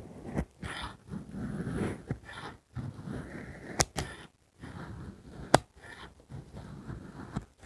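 Packed coloured magic sand being cut and crunched: a run of grainy crunching strokes with short gaps between them, and two sharp clicks, the louder one a little past halfway.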